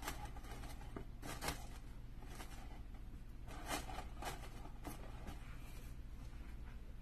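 Light, irregular handling noises: short scrapes and rustles as a foam base with an electric candle and artificial fall leaves are pushed into place inside a picture-frame lantern, over a steady low hum.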